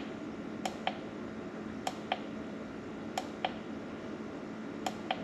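Push-button switch on a rechargeable COB LED camping lantern clicking as it is stepped through its light modes: four press-and-release double clicks about a second and a quarter apart.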